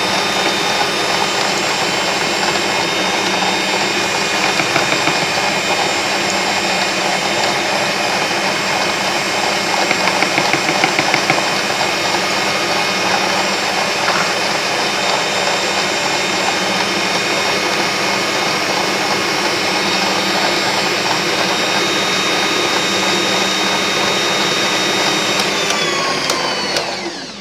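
Electric stand mixer running steadily, its beaters whirling through sponge-cake batter with a steady motor whine. Near the end it is switched off and the whine falls in pitch as the motor spins down.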